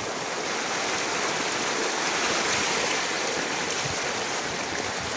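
Floodwater rushing down a street in a strong current: a steady rush of water that swells slightly midway.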